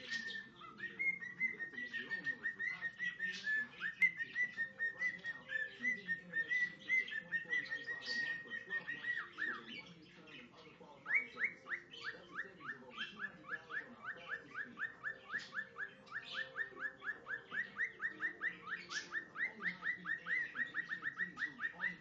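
Male cockatiel singing a whistled song of his own, pieced together from a couple of learned tunes. A long warbling whistle held near one pitch for about nine seconds, then after a brief pause a fast run of short falling chirps, about five a second.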